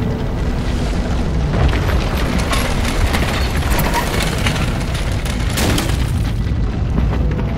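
A deep, steady rumble with scattered crackles, and a short hiss about five and a half seconds in: film sound design.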